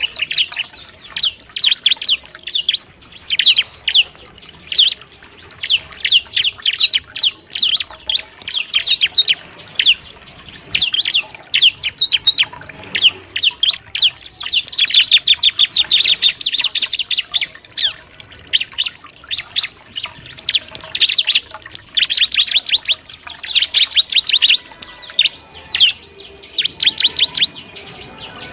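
Bar-winged prinia (ciblek) singing: fast, high chirping phrases in loud bursts with short pauses between, busiest around the middle and again a little later.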